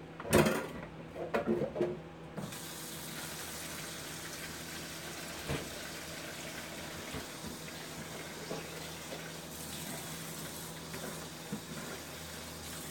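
Kitchen tap running steadily into a sink as a container is rinsed out under it, after a few knocks and clatters of handling in the first two seconds.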